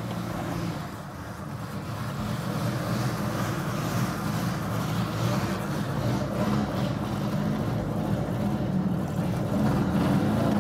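Classic Lada engine, rebuilt with welded connecting rods, running under load as the car pulls away, its steady note growing gradually louder.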